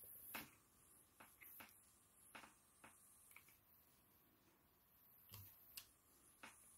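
Faint, irregular light clicks and taps, about ten in all, as an electric diamond-painting pen picks up AB drills and presses them one by one onto the adhesive canvas.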